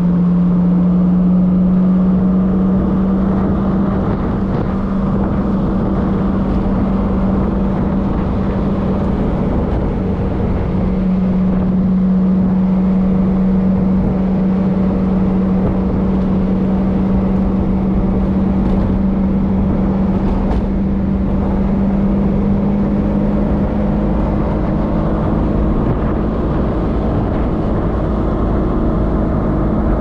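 Alfa Romeo Spider's engine running at a near-steady pitch while the car cruises, heard from the open cockpit along with wind and road noise.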